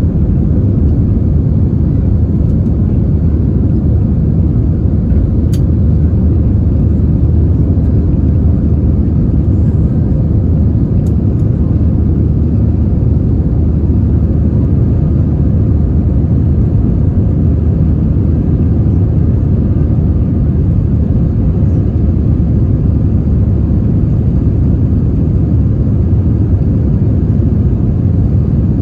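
Steady, loud rumble of an Airbus A320's jet engines and rushing air, heard from inside the passenger cabin.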